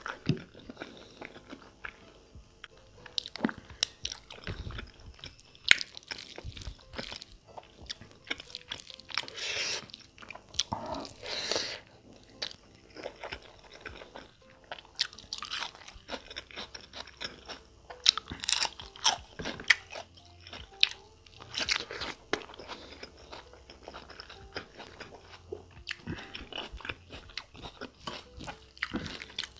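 Close-up chewing and biting of bone-in mutton curry with rice eaten by hand, with crunching in irregular bursts.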